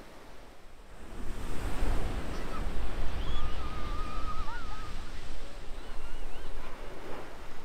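Ocean surf breaking and washing up the beach, a steady rushing that swells about a second in. A faint high, wavering call sounds briefly in the middle.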